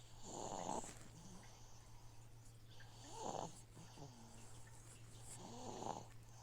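Soft snoring, three breaths about two and a half seconds apart, over the steady low hum of an aquarium filter.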